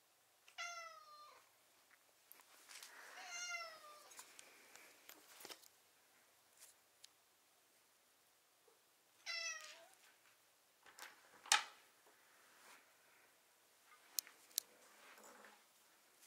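A domestic cat meows three times, two calls close together at the start and one about nine seconds in, each call falling in pitch at the end: she is asking to be let through the attic door, which she can't open herself. A sharp click comes about eleven seconds in and two lighter clicks follow a few seconds later.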